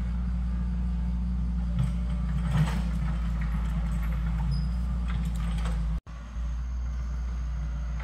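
Steady low hum of an excavator's engine running, with a few faint steps rustling on dry leaves. The sound cuts out for a moment about six seconds in.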